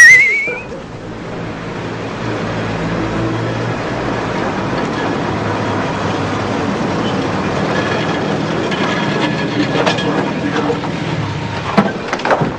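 A short, loud, rising warbling whistle at the very start, then a car engine running steadily as the car pulls up, with a few sharp clicks near the end.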